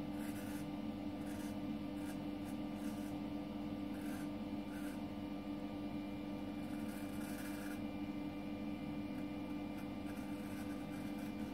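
Thiers Issard straight razor scraping through lathered stubble in a series of short strokes, mostly in the first eight seconds and a few more near the end, over a steady hum.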